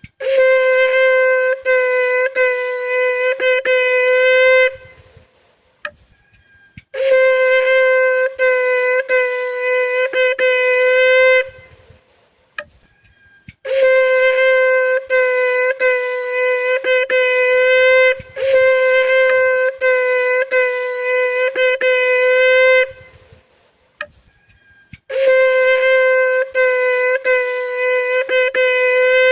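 Shofar (ram's-horn trumpet) blown in long, loud blasts on one steady pitch, several seconds each with short pauses between. The tone stutters briefly every second or so within each blast.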